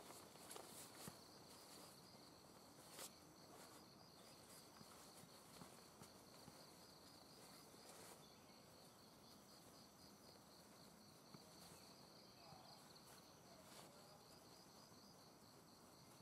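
Faint, evenly pulsed high insect trill, like a cricket, carrying on steadily. A few soft clicks and rustles of tent fabric being handled come through, the clearest about three seconds in and again about eight seconds in.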